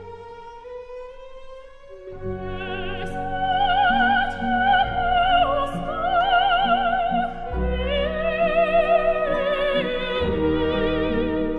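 Operatic soprano singing long, high held notes with a wide vibrato, accompanied by orchestra. The voice enters about two seconds in, after a quieter orchestral passage.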